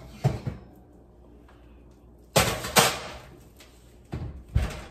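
Kitchen oven door and metal baking tray knocking and clattering as a pan is handled at the oven: a handful of sharp knocks, one just after the start, a loud pair about halfway through and another pair near the end.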